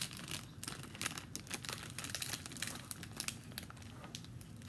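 Thin plastic snack packet, one that looks like rice paper, crinkling as it is squeezed and handled, in a run of irregular sharp crackles.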